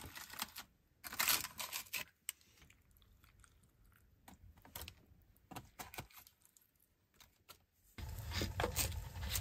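Soft food-prep handling sounds: a dried nori sheet rustling and crinkling against a plastic musubi mold, then a plastic spoon scraping pickled vegetables from a can, and a plastic knife cutting into meatballs. A low steady hum comes in near the end.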